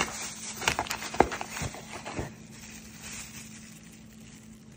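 Handling noise from unpacking: plastic packaging rustling with small clicks and knocks as a seasoning shaker is pulled out of a packed cardboard box. The sounds are busiest in the first two seconds or so and then die down, over a faint steady hum.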